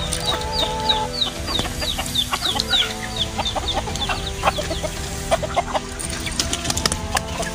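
Chickens clucking and calling, with a quick run of short, high chirps at about four a second in the first three seconds and a few sharp rustles or knocks near the end.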